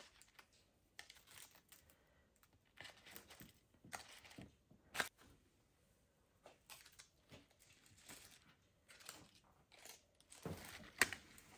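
Evergreen greenery being handled and arranged: faint, scattered rustling and crackling with a few sharper clicks, the loudest about five seconds in and again near the end.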